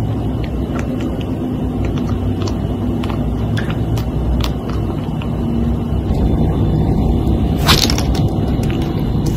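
Steady low rumbling noise with scattered faint clicks, and a short hiss near the end.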